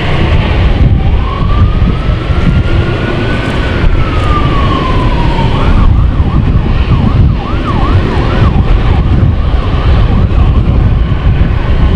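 Airport fire truck siren: one slow wail rising then falling, then switching to a run of quick yelps, over a heavy low rumble.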